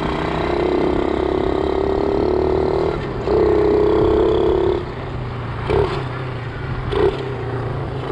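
Small single-cylinder bike engine running on the move with its exhaust packed with steel wool as a makeshift muffler, a lot quieter than open exhaust. About three seconds in the throttle opens and the engine note grows louder for a second and a half, then eases off, with two short throttle blips near the end.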